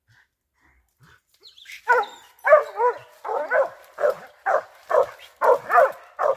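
Squirrel-hunting dog barking steadily, about two barks a second, starting about two seconds in.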